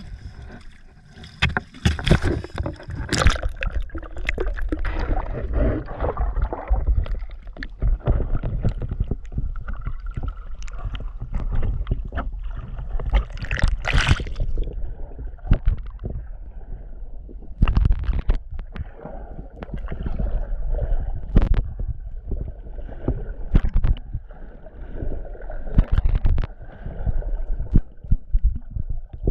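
Sound picked up by a GoPro in its waterproof housing dipped over the side of a fishing boat and held underwater: a constant low rumble with gurgling, sloshing water and frequent irregular knocks and bumps.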